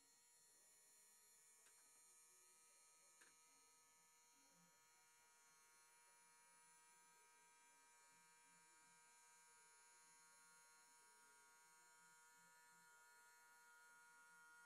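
Near silence: a faint steady electrical hum and hiss, with two faint clicks in the first few seconds.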